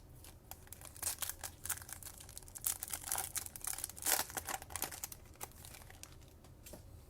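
Crinkling and tearing of a foil trading-card pack wrapper being opened, a quick run of sharp crackles.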